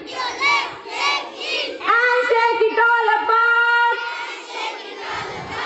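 A group of children singing an action rhyme together: a run of short chanted syllables, then held sung notes from about two seconds in.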